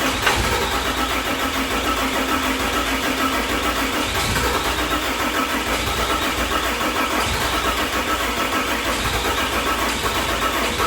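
6.7 Cummins turbo-diesel cranking steadily on the starter with an even, pulsing rhythm but not firing. It is a no-start even though the engine is getting fuel, which the owner thinks could be the injectors.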